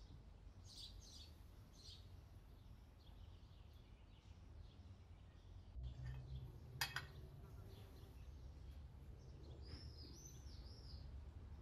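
Quiet outdoor background with faint bird chirps, mostly in the first couple of seconds and again near the end, and a single sharp click about seven seconds in.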